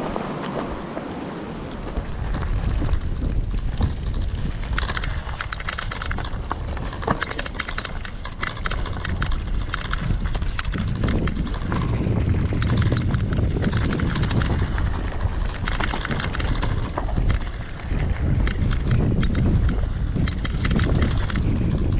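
Mountain bike rolling down a rocky natural trail: tyres crunching over stones and gravel and the bike rattling with frequent sharp knocks, over a low rumble of wind on the microphone. The rattling starts about two seconds in and keeps on.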